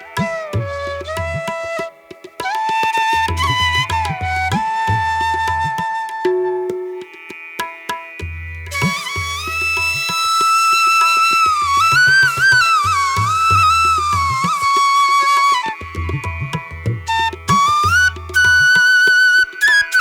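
Background music: a melody with gliding, bending pitch over a repeating low drum pattern.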